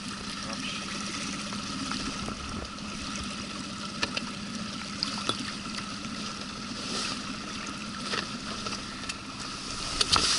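Small outboard motor on an inflatable boat idling steadily, with river water running and lapping along the hull and a few light knocks.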